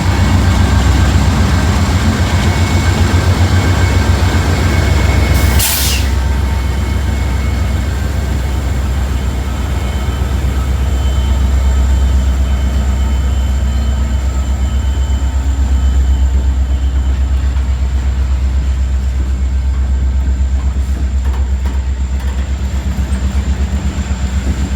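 Diesel freight locomotive running with a steady low engine drone, with a brief loud burst of hiss about five and a half seconds in.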